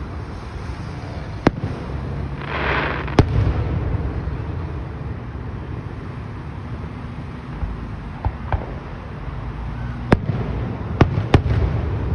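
Fireworks going off in a display: about five sharp, loud bangs at irregular intervals, with a hissing rush just after two seconds in and softer pops about eight seconds in, over a steady low rumble.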